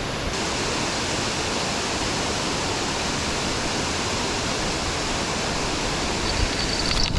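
Waterfall rushing steadily, a dense even wash of falling water with no break. Near the end a faint high-pitched ticking comes in.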